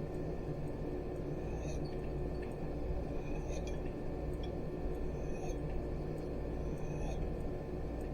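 Background music: a steady low drone with a soft high accent repeating about every two seconds.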